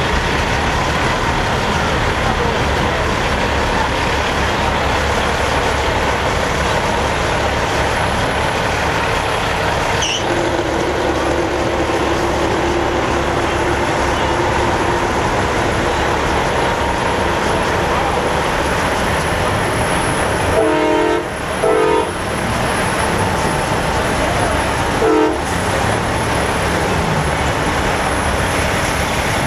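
Semi trucks' diesel engines running steadily, with truck air horns blowing: a long low horn note, then two loud blasts in quick succession about two-thirds of the way in, and one short blast a few seconds later.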